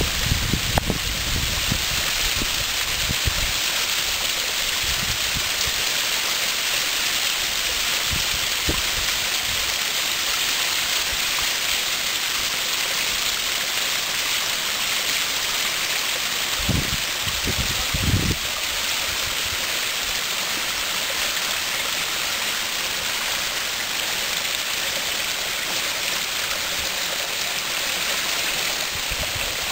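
Small waterfall splashing and trickling over rocks: a steady rushing hiss of falling water. Brief low thumps come near the start and again a little past halfway.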